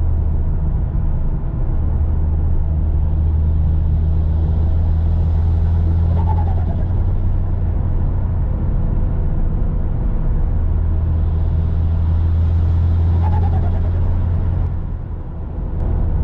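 Turbocharged Mitsubishi Lancer engine cruising on the highway, heard inside the cabin as a steady low drone. The driver twice builds a little boost and lifts off, and each time a short falling whistle follows as the turbo spools down and the blow-off valve vents.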